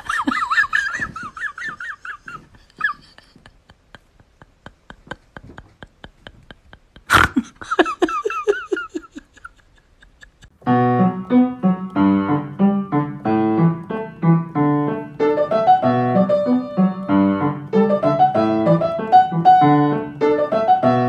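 Piano music comes in about halfway through and plays on. Before it there are quieter wavering voice-like sounds over a run of quick, evenly spaced clicks, with one sharp click.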